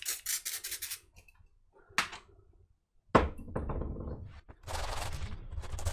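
An aerosol can of multi-surface polish rattles in a quick run of shakes, then comes a single knock. From about halfway, a steady hiss and rough cloth rubbing come as the polish is sprayed and wiped over the laptop's plastic body.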